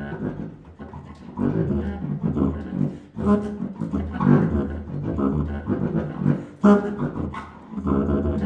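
Prepared low brass instruments playing low held tones in phrases of a second or two, with brief breaks between.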